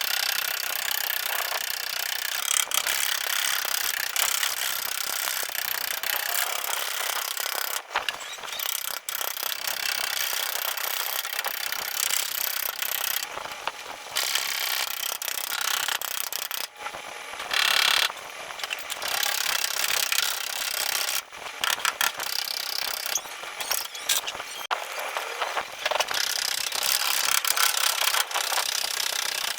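Continuous rasping, scraping noise of tool work on a car's body panel, with short breaks now and then.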